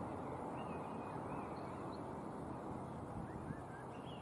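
Steady low rushing background noise with a few faint, short bird chirps scattered through it.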